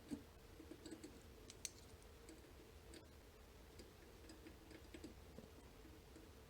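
Faint, irregular clicks of a pick probe pushing down the pins of a small tubular lock held under tension, a handful of light ticks spread over several seconds, the plainest near the start and about a second and a half in.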